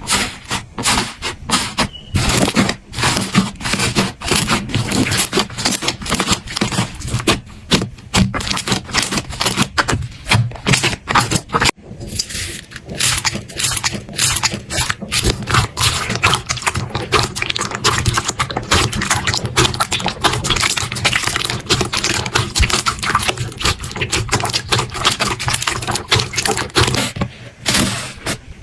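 Slime being squeezed and pressed by hand, making dense, irregular crackling and popping clicks, with a brief break about twelve seconds in.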